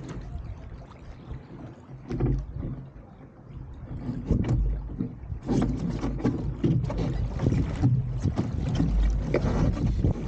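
Wind buffeting the microphone over water rushing and splashing along the hull of an RS300 sailing dinghy under way. The splashing gets louder and busier about halfway through.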